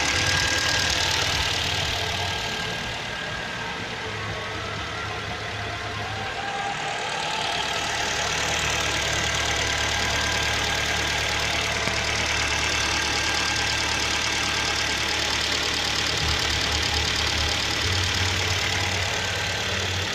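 Freshly rebuilt car engine running steadily on its first run after a full overhaul. It gets a little quieter for a few seconds near the start, then holds steady.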